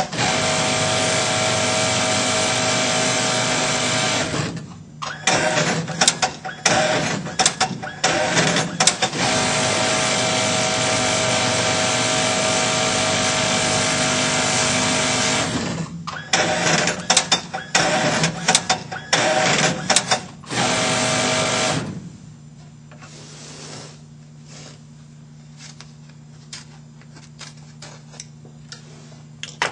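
Industrial sewing machine with a tape-binding folder stitching the edge of a quilted mattress panel, running at speed in long steady runs broken by short stop-start bursts. About 22 seconds in the stitching stops, leaving a quieter steady low motor hum and a few faint clicks.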